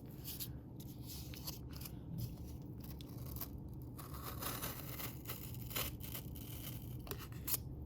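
Civivi Aquila folding knife slicing cardboard: a series of scratchy, tearing cuts with short pauses between them, from an edge that is not sharp.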